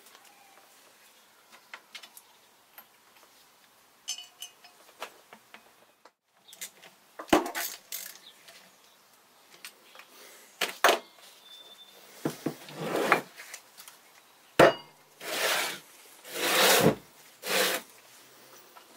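Heavy metal electric-motor stator housing and its foot bracket handled on a workbench: light clicks at first, then a few sharp knocks and clunks, and several short scraping slides of the housing across the bench near the end.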